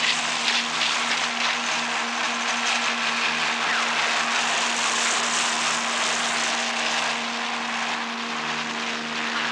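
A steady motor drone with a hiss over it, even throughout.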